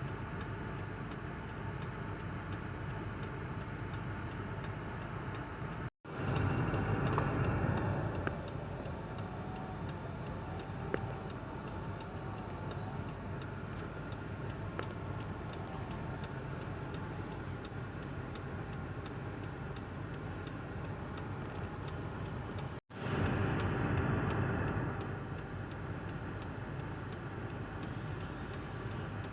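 A small engine running steadily with a fast, even ticking. It cuts out abruptly twice, and each time it comes back it runs louder for a couple of seconds before settling.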